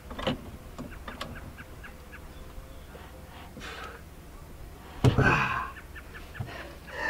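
Hydraulic floor jack being pumped by its long handle under a heavy battery box: a string of clicks and small knocks from the handle and lifting arm, with one louder, brief noise about five seconds in.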